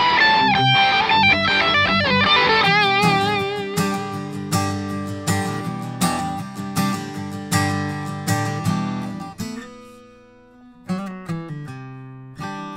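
Electric guitar lead line with string bends and vibrato, giving way about three seconds in to an acoustic guitar strumming chords. Near the end the strumming thins to a few picked notes before the strums return.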